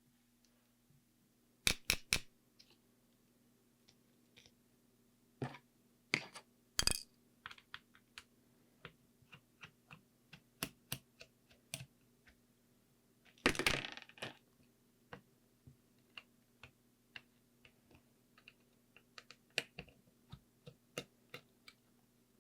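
Small hand tools and tiny screws clicking and tapping against a camera body and work surface during a repair, in irregular light clicks with a brief rattling clatter about halfway through. A faint steady hum runs underneath.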